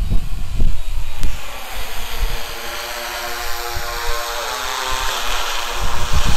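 Eight-rotor agricultural spray drone flying in overhead, its propellers making a steady multi-tone hum that grows louder and hissier toward the end as it comes closer. Low rumbling buffets of wind on the microphone near the start.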